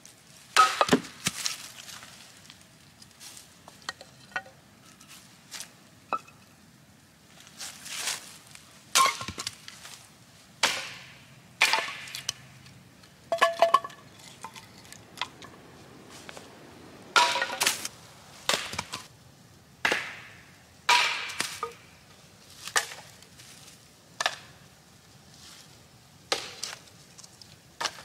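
Firewood being chopped and split with a hatchet: a long, irregular series of sharp strikes about one a second, some with a brief metallic ring.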